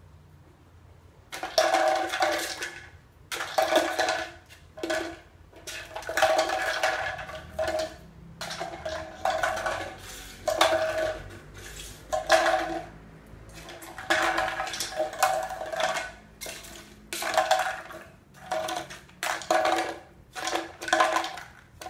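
Dry kibble rattling inside a plastic medicine bottle as a dog noses and rolls it about to shake food out, in irregular bursts starting about a second in.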